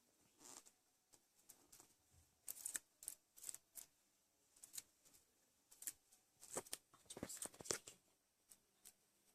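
Slime being handled: faint, irregular sticky clicks and crackles, in small clusters.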